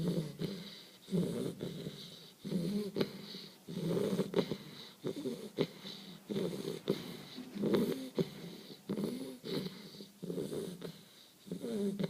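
English bull terrier puppy snoring in its sleep, with a snore on each breath, a little over a second apart. A wavering whistle runs through each snore.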